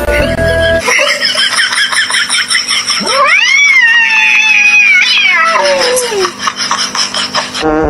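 A cat caterwauling. In the middle comes one long call that rises and then slowly falls in pitch.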